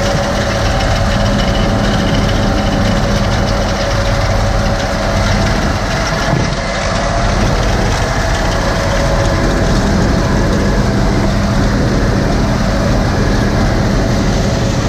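Combine harvester running steadily, its engine and threshing drives giving a constant hum with a few steady whining tones.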